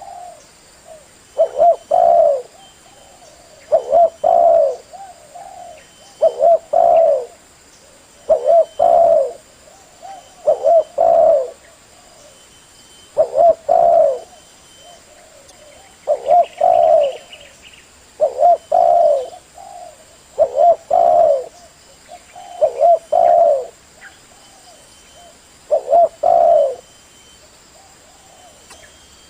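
Spotted dove (tekukur) cooing over and over: a short multi-note coo phrase about every two seconds.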